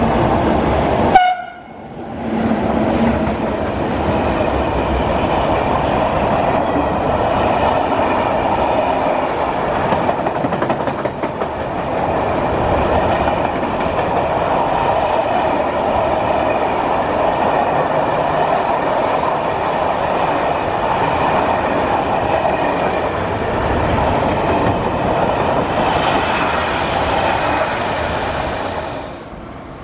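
Electric locomotive hauling a long freight train of covered wagons through a station. About a second in there is a short, very loud horn blast, then the steady noise of many wagon wheels running over the rails, which drops off sharply near the end as the last wagon passes.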